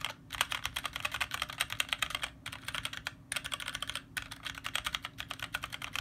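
Fast typing on a Magicforce 68-key mechanical keyboard with tactile Gateron Brown switches and ABS keycaps: a quick, continuous clatter of keystrokes, several a second, broken by a few short pauses.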